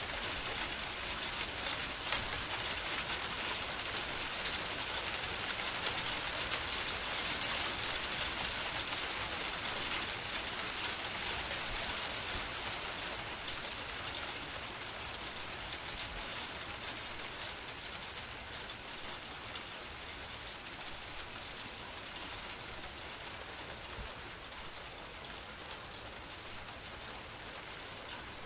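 Steady rain falling, a dense even hiss with a few sharper drop ticks, slowly getting quieter through the second half.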